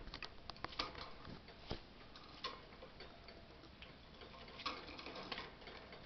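Irregular light clicks and taps of a parrot clambering about a wire cage, its beak and claws on the metal bars. They come in small clusters near the start, once about halfway through, and again near the end.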